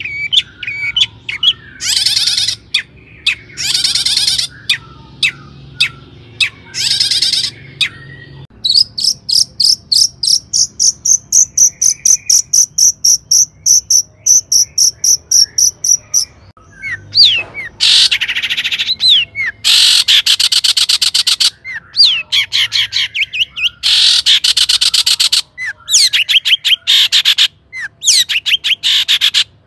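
Long-tailed shrike (cendet) singing a loud, varied song. It opens with short rapid chattering phrases, then about nine seconds in gives a long run of quick repeated high notes, about four a second for some seven seconds, before going back to dense chattering phrases.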